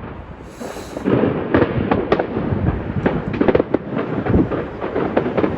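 Fireworks going off, a dense run of sharp bangs and crackles over a low rumble that keeps going throughout.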